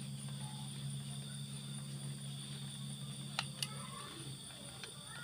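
Two sharp clicks in quick succession about three and a half seconds in, from a screwdriver and hands working on a motorcycle radiator's metal bracket, over a steady low hum.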